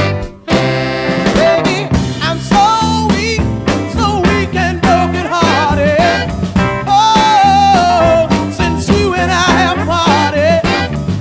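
Music: a 1960s soul recording, a full band playing with a wavering lead melody line, after a brief break at the very start.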